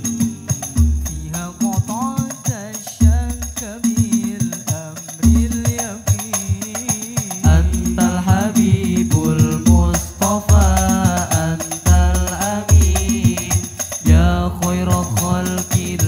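Hadrah al-Banjari music: several male voices sing a sholawat melody into microphones over a rhythm of hand-struck banjari frame drums (terbang), whose deep strokes land about once a second.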